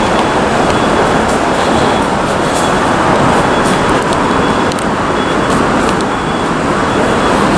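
Steady roar of city street traffic, an even wash of vehicle and tyre noise with no single vehicle standing out.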